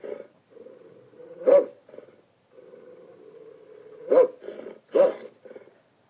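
Wolf character sound effects from an animated film: three sharp dog-like barks, about a second and a half in and twice more near the end, over a fainter continuous low vocal sound.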